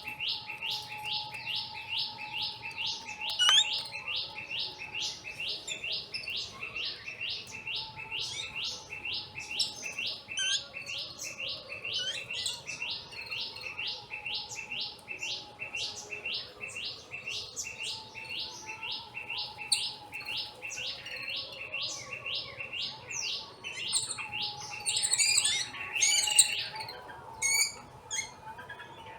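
A bird gives a long, even series of identical sharp chirps, about three a second. Near the end other, higher and more varied bird calls take over.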